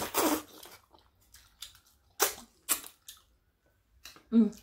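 Close-miked eating of a seafood boil: a run of sharp cracks and crunches, the loudest at the start and two more a little after the two-second mark. Near the end comes a short hummed 'mm'.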